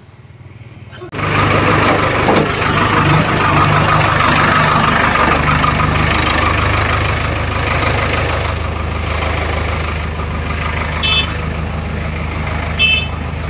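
Diesel engine of a backhoe loader running steadily close by. Two short high beeps sound near the end.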